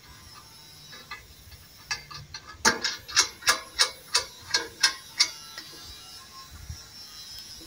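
A run of sharp metallic clicks, about three a second for a couple of seconds, with a few fainter ticks before it, as the bolt and nut holding the fan adapter plate are fastened to the steel clean-out door of the smoker.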